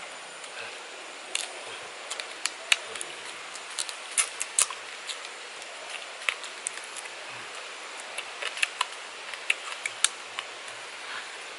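Eating by hand: irregular sharp clicks and cracks as a small piece of cooked food is picked apart with the fingers and bitten, over a steady hiss of forest ambience.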